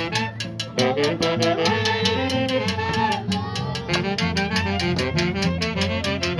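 Folk orchestra music: a lively melody on wind instruments over a quick, steady beat.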